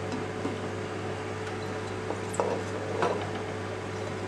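Steady low hum, with a few soft taps about two and three seconds in as sliced bitter gourd rings drop from a plate into a clay pot.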